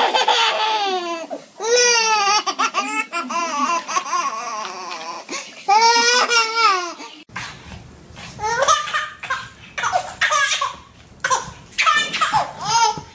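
A baby laughing in long, high-pitched peals. About seven seconds in it changes to shorter bursts of laughter.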